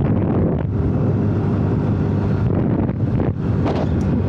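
Wind buffeting the microphone while riding a motor scooter on the highway, a loud rough rush with the scooter's engine running underneath.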